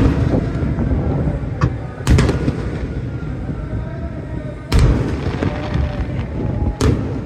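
Aerial fireworks shells bursting: four loud booms about two seconds apart, with smaller cracks between them and a low rumble underneath.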